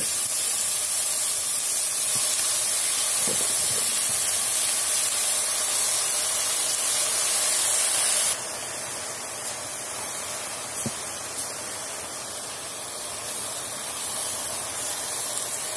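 Washed, still-wet chopped spinach sizzling and hissing in hot oil on top of fried onions in a pot, stirred with a wooden spoon. The hiss drops suddenly about eight seconds in and goes on more quietly, with an occasional light knock of the spoon.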